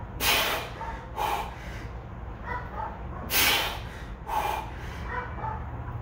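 A man breathing hard through the mouth while pressing a barbell through bench-press reps: four forceful breaths in two pairs about a second apart.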